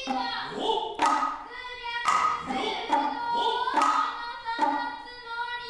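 Noh hayashi ensemble playing: shoulder and hip drums (kotsuzumi and ōtsuzumi) struck about once a second, each stroke led by a drummer's long drawn-out kakegoe call. A held nohkan flute note sounds beneath.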